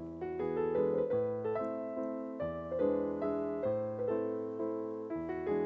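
Background piano music: a slow melody of single notes over sustained chords, each note ringing and fading.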